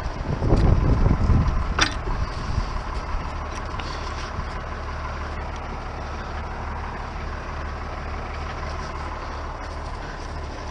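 Ford TW-25 tractor's six-cylinder turbo diesel running steadily under load while pulling disc harrows through rough ground. A heavier rumble in the first couple of seconds ends in a sharp knock.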